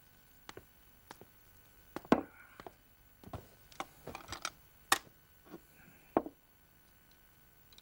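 Tableware knocking and clinking as bowls and chopsticks are picked up and set down on a low wooden table during a meal: a string of irregular sharp knocks, some with a short ring, the loudest about two, five and six seconds in.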